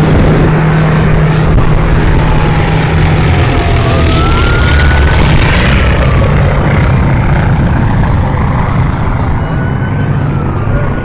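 Fire truck siren wailing, its pitch rising and falling in slow sweeps, heard over a loud low rumble.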